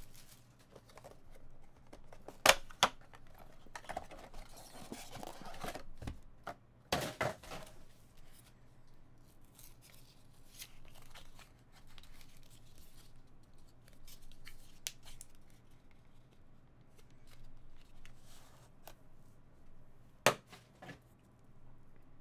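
Panini Spectra basketball hobby box being unwrapped and opened by hand: plastic wrap torn and crinkled, then cardboard flaps and the inner box worked open, with a few sharp cardboard snaps, the loudest near the end.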